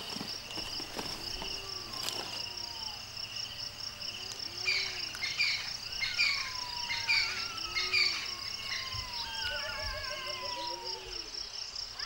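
Steady insect chorus, a high pulsing trill, with birds calling over it: a run of short chirps around the middle, then several descending whistled notes. A low arched call repeats about every second and a half.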